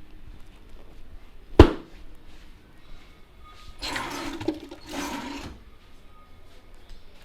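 Barber's head massage: one sharp, loud hand slap, then two rough swishing rubs each under a second long.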